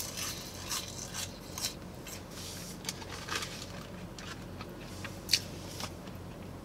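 Chewing crunchy fried food close to the microphone: scattered soft crunches, one sharper crunch about five seconds in.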